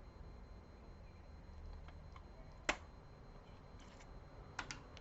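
Quiet room tone with one sharp click a little past halfway and a few lighter clicks near the end, from small laptop parts being handled during disassembly.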